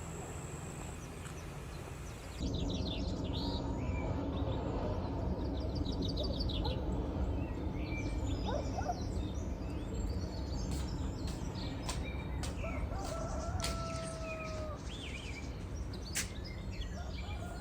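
Village ambience of small birds chirping and chickens calling, with a longer drawn-out call like a rooster's crow a little past the middle, over a steady low rumble. The sound gets louder about two and a half seconds in, and a few sharp clicks come near the end.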